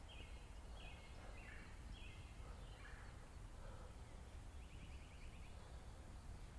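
Faint bird calls: short high notes repeated about every half second, with a quick rattling note about five seconds in.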